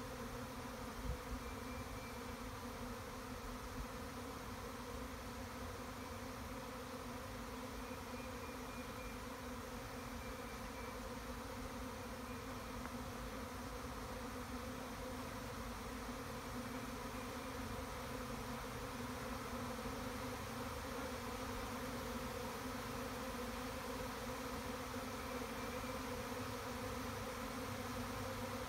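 A honeybee swarm buzzing in a steady, dense hum as thousands of bees fly around and settle into a swarm trap box. A brief bump comes about a second in.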